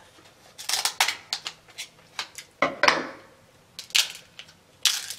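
Kitchen scissors snipping through the hard shell of a cooked king crab leg: a string of sharp, irregular crunchy cracks and snips, some louder than others.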